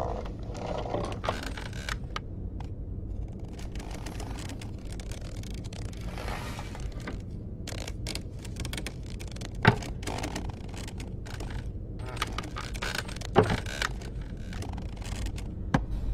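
A brush scraping against a wooden post, with scattered small wooden clicks over a low, steady hum. Two sharper knocks come about ten and thirteen seconds in.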